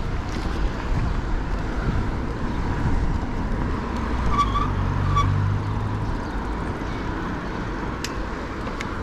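City road traffic heard from a moving bicycle: a steady low rumble of wind and road noise, with a motor vehicle's engine hum swelling and fading as it passes about four to six seconds in. Two short high chirps sound as it goes by.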